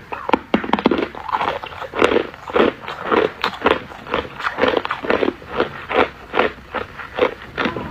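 Hard ice chewed close to the microphone: sharp cracks in the first couple of seconds, then steady crunching at about two to three chews a second.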